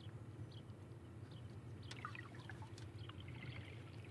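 Faint outdoor ambience: a steady low rumble with scattered faint chirps and clicks.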